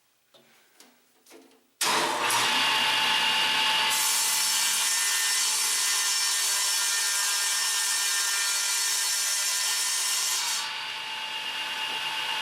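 Electric power saw starting up and cutting through a sheet of board. The motor whine comes in suddenly about two seconds in. The hissing rip of the blade in the board follows from about four seconds in and stops near the end as the cut finishes, leaving the saw running free.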